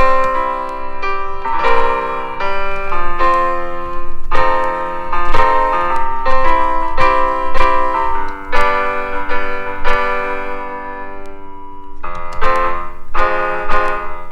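Piano notes from BandLab's virtual piano, played from a MIDIPLUS AKM320 USB MIDI keyboard: a string of melody notes and overlapping chords, with a brief lull about eleven seconds in.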